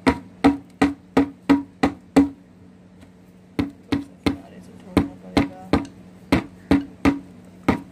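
A plant pot turned upside down and knocked repeatedly, about three hollow knocks a second with one short pause, to loosen the kochia's root ball so it slides out. The root ball is stuck, which the gardener puts down to the plant having been raised in cocopeat.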